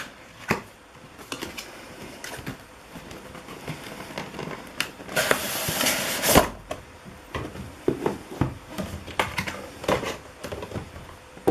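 Cardboard graphics card box being handled: scattered taps and clicks, then a scraping rustle of the inner cardboard box sliding out of its printed sleeve about five to six seconds in, ending in a dull knock.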